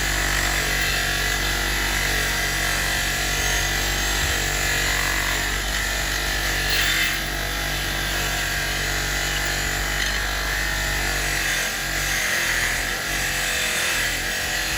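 A motorised wire-brush wheel runs steadily with an old steel box spanner pressed against it, scouring its surface clean.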